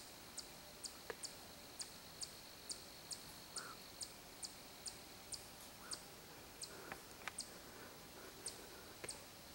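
Faint, high insect chirps repeated evenly about twice a second over a steady high hum, with a few faint sharp clicks.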